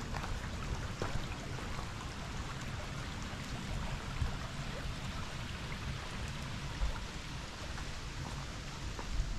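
Shallow brook trickling over pebbles: a steady, even hiss of running water. A low rumble sits underneath, with a few faint ticks.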